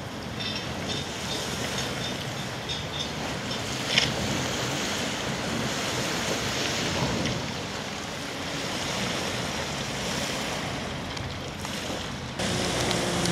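Wind on the microphone over small waves lapping at the loch shore, with a jet ski's engine running in the distance. After an abrupt change near the end, a jet ski engine idles close by with a steady low hum.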